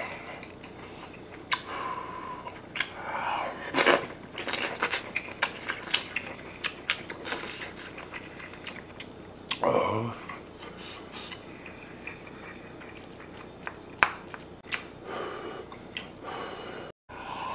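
Eating sounds: a person chewing and biting food, with a spoon clicking and scraping against the metal pot and a bowl as kimchi stew is scooped.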